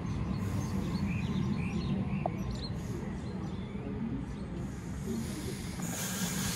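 Birds chirping over a steady low rumble, with the electric suburban train moving off. About six seconds in, a louder rushing train noise sets in.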